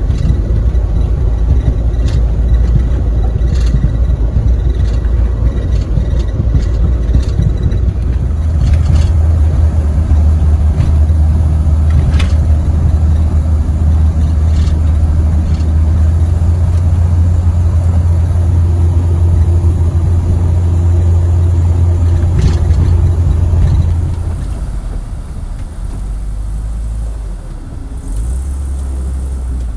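A vehicle driving, with a steady low engine and road rumble that gets heavier about eight seconds in and drops off sharply about three quarters of the way through, with a few scattered clicks.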